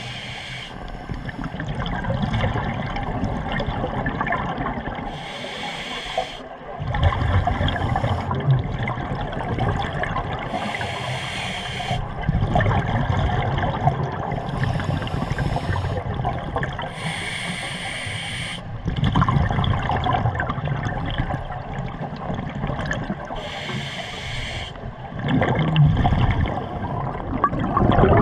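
Scuba diver breathing underwater through a regulator: a short hissing inhale every few seconds, alternating with louder bubbling, rumbling exhales.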